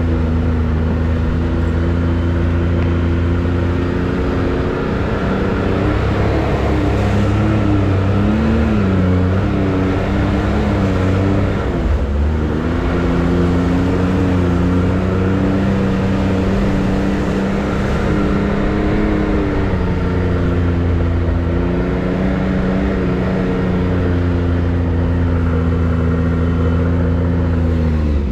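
Can-Am X3 side-by-side's turbocharged three-cylinder engine running steadily along the trail, its pitch wavering up and down with the throttle a few times. It drops away near the end as the machine slows.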